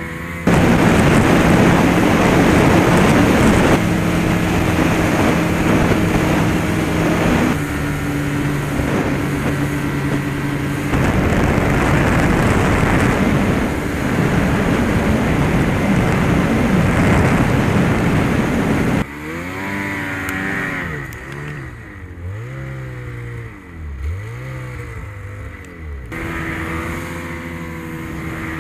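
Snowmobile engine running hard at steady revs, its pitch stepping between levels. Past the middle it drops quieter, with the revs rising and falling several times, then holds steady again near the end.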